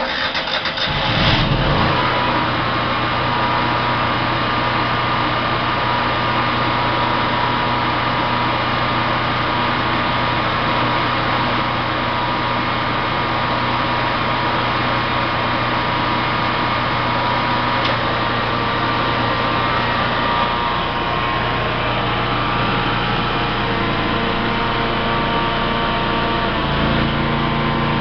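Generac Guardian 15 kW standby generator's engine cranking and catching within about two seconds, then running steadily. Its note shifts slightly about a second before the end.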